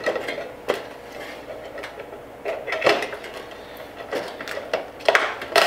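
Fluorescent tubes being worked into the end sockets of a metal-reflector light fixture: scattered clicks and knocks of glass tubes, pins and sheet metal, with a quick cluster of them near the end.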